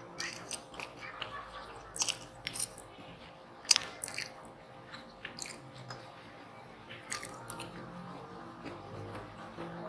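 Close-miked eating of instant noodles: slurping strands in and chewing, with scattered sharp wet mouth smacks, the loudest a little under four seconds in. Quiet background music plays underneath.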